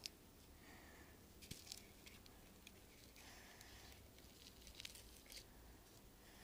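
Near silence, with a few faint clicks and rustles of a dried pufferfish ornament being handled and set down.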